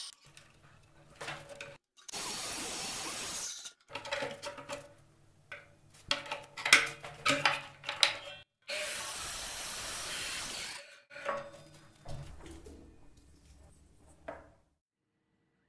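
Makita miter saw running and cutting into a wooden dowel in two short spells of steady noise, with sharp knocks and clatter of the saw and clamp being handled between them. After the second spell the sound fades away.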